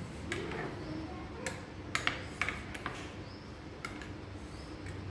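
A steel spoon stirring thick mango chutney in a glass bowl, knocking and scraping against the glass in irregular clinks, most of them bunched in the middle.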